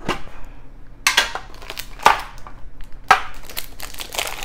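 Metal collector's card tin being worked open, with about four sharp metallic clicks a second apart as the lid is pried and pulled off. Near the end, plastic wrapping crinkles as a wrapped deck box is lifted out of the tin.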